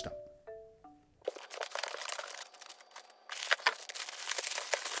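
A few short xylophone-like notes of a music jingle die away. About a second in, the clear plastic wrapping of a packaged toy cat bed starts crinkling and rustling as hands handle it, in a dense run of small crackles.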